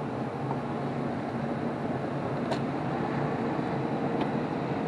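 Steady mechanical whirring hum of a running machine, even in level, with a faint click about two and a half seconds in.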